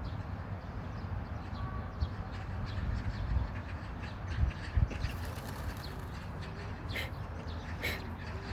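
Outdoor ambience: a steady low rumble, with a few faint short bird chirps near the end.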